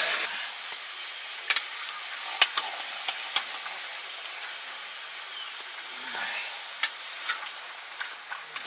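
Meat frying in an iron wok over a wood fire, a steady sizzle, while a metal spoon stirs it, with a few sharp knocks scattered through.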